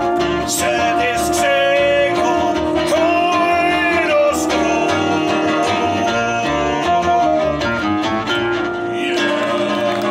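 Live band music with a plucked double bass, keyboard and violin under a singer's voice at the microphone.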